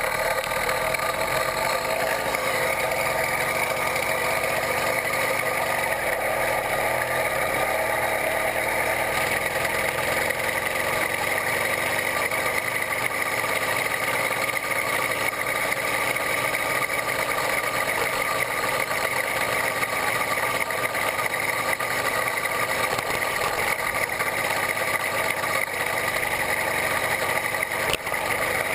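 A 66/80cc Chinese two-stroke bicycle engine running steadily as the motorized bicycle cruises along at an even speed.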